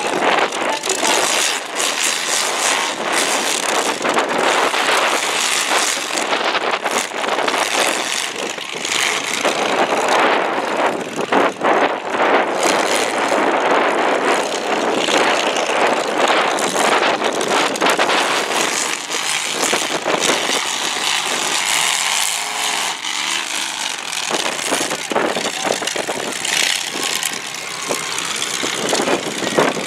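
Several demolition derby cars' engines running and revving in a dirt arena, with repeated sharp bangs of the cars ramming into each other.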